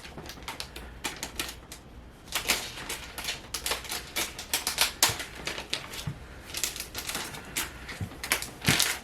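Adhesive tape being peeled off packaging: an irregular crackle of rapid clicks, sparse at first and dense from about two and a half seconds in.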